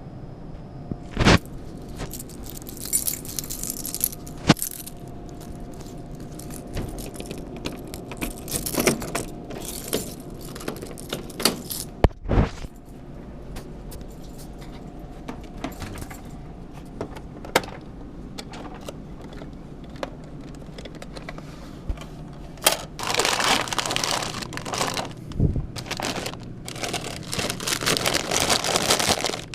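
Keys jangling and rattling, with scattered clicks, knocks and rustling handling noise over a faint steady hum; the handling gets busier in the last few seconds.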